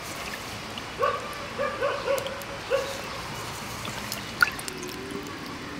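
A dog barking, five short barks in the first three seconds, over faint trickling and splashing water from hands working catfish in a metal bowl of water.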